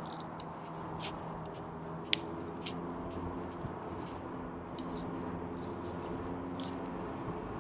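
Light clicks and scrapes of digging at a metal-detector signal, with one sharper click about two seconds in, over a low steady hum.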